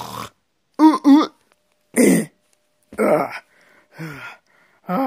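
A person's voice making short non-word vocal noises: about six brief sounds, each under half a second. Some are pitched and rise and fall; others are breathy puffs.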